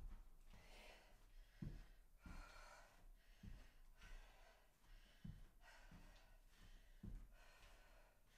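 Faint, hard breathing of a woman doing bodyweight lunges, with a soft thud of a foot landing on carpet about every two seconds.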